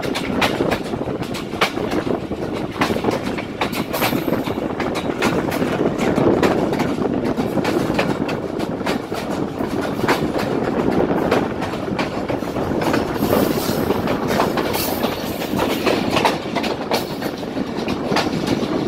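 Pakistan Railways passenger train running at speed, heard from an open coach window: its wheels clack rapidly over the rail joints over a steady rumble of the running gear.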